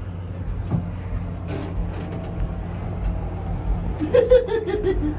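Steady low machine hum inside an enclosed Ferris wheel gondola as the wheel turns, with a few faint clicks and a brief voice near the end.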